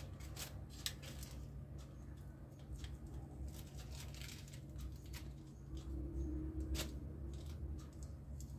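Scattered light scrapes and clicks of a small knife working through thin sesame dough on plastic film, with soft rustling of the film as cut rounds are lifted; a sharper click about a second in and another near the end.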